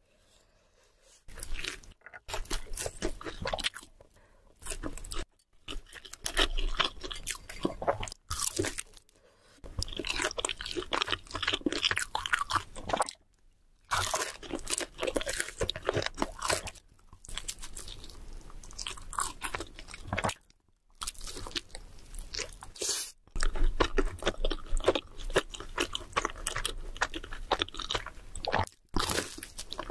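Close-miked crunchy biting and chewing of food, in stretches of crackling chews broken by several brief silences.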